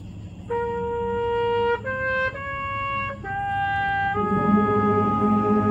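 Brass instruments playing a slow melody in long held notes: a single brass line at first, then fuller, lower brass chords join about four seconds in.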